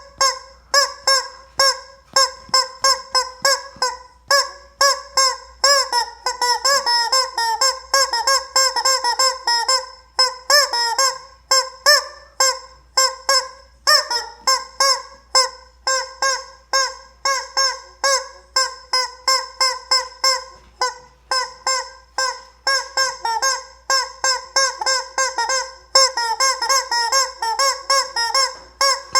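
Rubber chicken toy squeezed over and over, giving a fast run of short, pitched squawks, about two to three a second.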